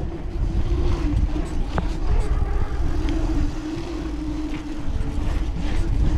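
Mountain bike rolling fast downhill over paving, heard from the rider: wind rushing on the microphone with a steady, wavering whir from the tyres, and a couple of sharp knocks from bumps.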